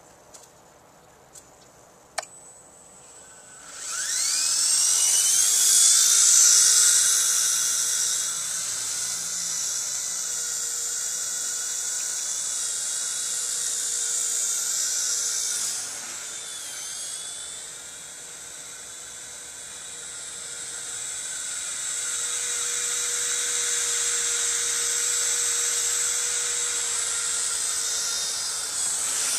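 Small radio-controlled helicopter's motor and rotor spooling up about four seconds in with a rising high-pitched whine, then a steady high whine as it flies, dropping in loudness for a few seconds past the middle and building again. A few faint clicks come before the motor starts.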